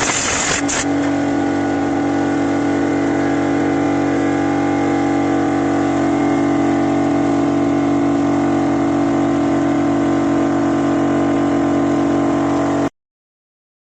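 A motor running steadily at a fixed speed with a strong, even hum. For the first second it has a rougher, hissing noise over it, and it stops abruptly near the end.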